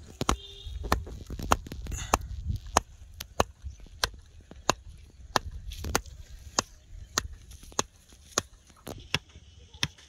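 A wooden stick knocking on the top of a rope-wrapped bamboo stake, driving it into the ground: steady single knocks, about one every two-thirds of a second.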